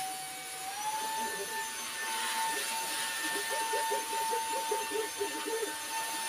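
Proscenic cordless handheld vacuum cleaner running, a steady high motor whine with airflow hiss as it sucks crumbs off the cabinet floor. The whine steps up slightly in pitch about a second in.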